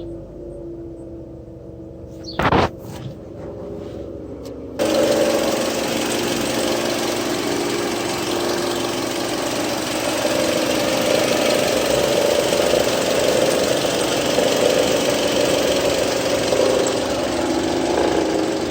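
2008 Mitsubishi Lancer GTS 2.4-litre four-cylinder engine running at a steady idle, the noise its owner calls weird. A single sharp knock comes about two and a half seconds in, and just before five seconds the sound jumps louder with a steady hiss added on top of the hum.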